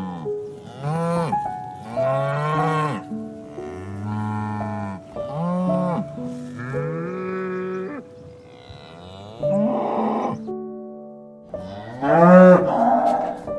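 Cow mooing, a string of long moos one after another, each rising and falling in pitch, the loudest near the end. Soft music plays underneath.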